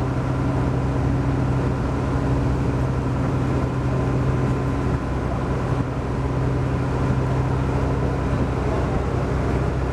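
Houseboat's engine running steadily under way, a low, even drone.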